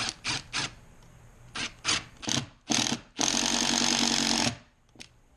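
Power drill driving a screw: a string of short trigger bursts, then one steady run of over a second that stops suddenly.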